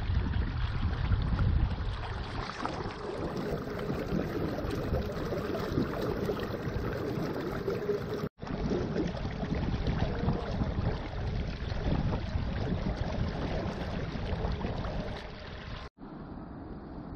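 Water rushing and splashing along the tube of a moving inflatable boat, with wind buffeting the microphone. The sound drops out abruptly twice, and is quieter near the end.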